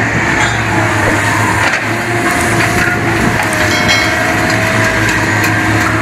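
Sennebogen material handler at work: its diesel engine running steadily with a held hydraulic whine, and wood and scrap debris crunching and cracking in the orange-peel grapple.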